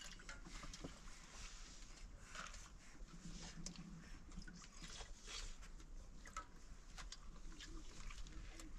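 Quiet meal sounds: faint scattered clicks and taps of cups and dishes, light rustling and chewing.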